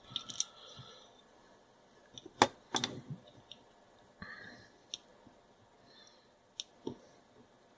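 Small plastic and metal light-switch parts clicking and tapping as they are handled and fitted back together: a scatter of short sharp clicks, the loudest two close together about two and a half seconds in.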